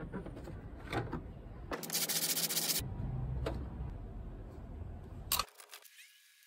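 Rubbing and knocks as a homemade bumper panel is handled against the car and sanded with a hand sanding block, with a harsh scraping hiss lasting about a second, about two seconds in.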